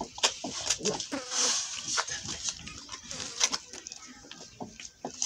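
A calf suckling at a goat's teat, its mouth making a run of irregular wet smacking clicks.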